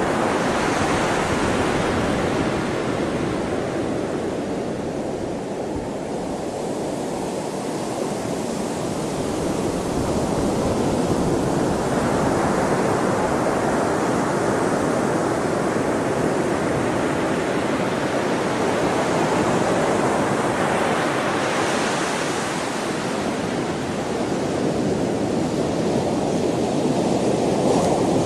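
Sea waves breaking and washing on a shore: a continuous rushing surf that swells into a brighter hiss as each wave breaks, roughly every ten seconds.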